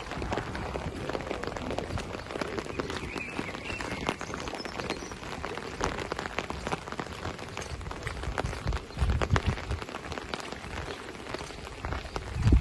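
Heavy, steady rain falling on wet asphalt, a dense hiss full of many sharp close drop hits, with a few low thumps about nine seconds in and near the end.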